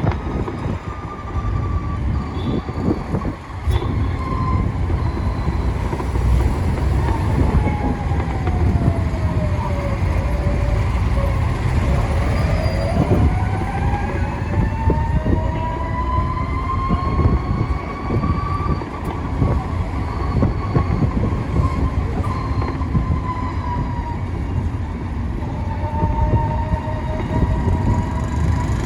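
A vehicle on the move: a steady low rumble with an engine whine that falls in pitch for a few seconds, then climbs again as it slows and speeds up.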